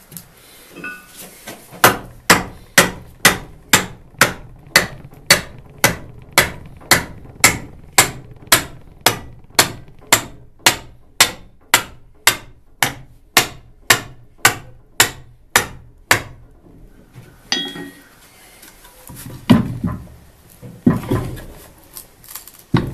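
Steady hammer blows, about two a second for some fourteen seconds, driving a wooden wedge between the jaws of a rust-seized blacksmith's shear to force them apart. The blows stop, then a few louder knocks and rattles of the wood and iron being handled follow near the end.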